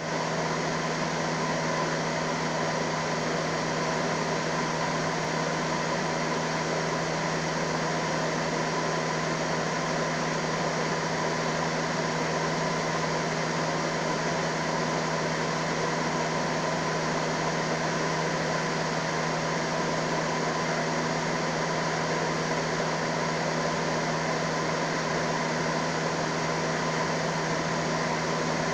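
Steady mechanical hum over a hiss, with a low drone and a fainter higher tone.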